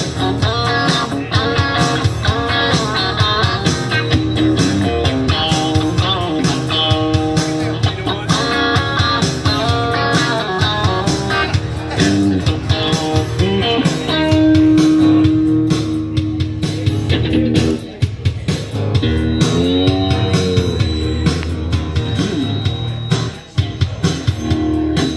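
Live amplified guitar duo playing an instrumental break: strummed acoustic-electric rhythm guitar under a lead guitar solo of quick runs, then a long held note about halfway through, then bent notes.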